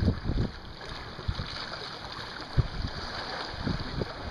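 Wind buffeting the microphone in short low gusts, over a steady wash of open water.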